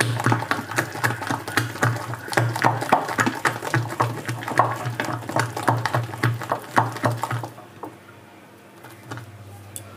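A hand beating thick ground urad dal batter in a glass bowl: rapid wet slapping and squelching strokes, several a second, that stop about seven and a half seconds in. The batter is being whipped to get air into it.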